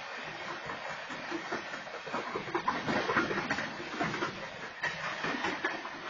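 Union Pacific freight train's coal gondola cars rolling past. The steel wheels on the rails give a steady rumble with irregular knocks and clanks, loudest around the middle.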